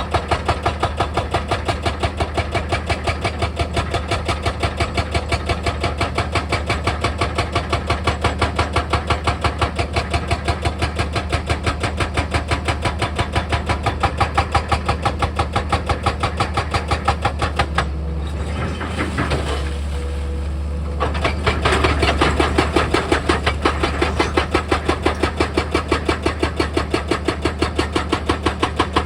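Heavy machine's diesel engine running under a rapid, regular hammering of about three or four strokes a second, typical of percussive rock work. About two-thirds of the way through the hammering stops for a few seconds while the engine keeps running, then starts again, louder.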